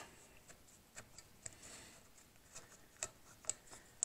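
Faint, scattered light metallic clicks and taps of a socket on an extension, turned by hand to loosen a small bolt on an engine cylinder head.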